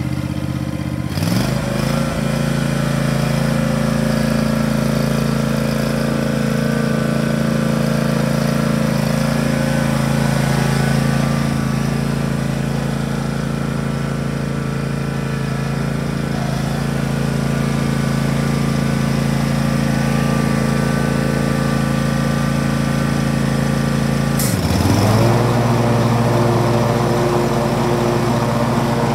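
John Deere S240 riding mower's engine running steadily as the mower is driven. About a second in, the engine note rises with a click. Near the end it dips briefly, with another click, and comes back up.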